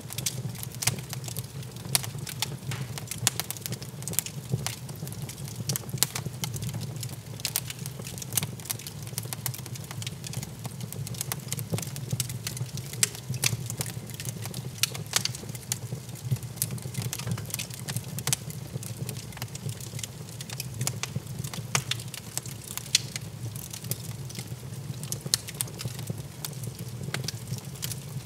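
Wood fire crackling in an open fireplace: irregular sharp pops and snaps over a low, steady rumble.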